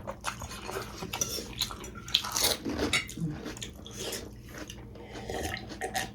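Cutlery clinking and tapping on dishes and bowls in a run of short, irregular clicks, with bites and chewing between them.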